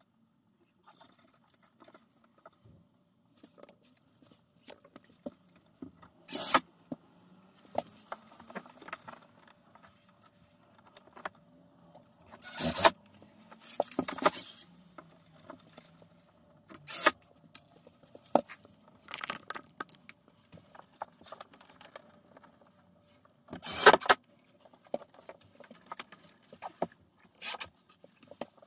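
Scattered clinks, knocks and scrapes of hand work on a steel-wire-armoured cable being fixed to a wall with cleats, with metal tools and fixings jangling, several sharper knocks standing out.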